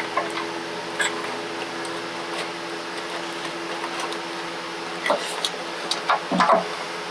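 Light clicks and small metal rattles of hand-fitting a small engine's throttle linkage and carburetor parts, busiest about five to six and a half seconds in, over a steady hum.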